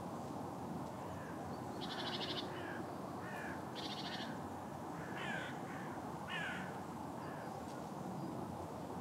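Crow-family birds calling: two harsh, rasping calls about two seconds apart, with several shorter calls around them, over steady background noise.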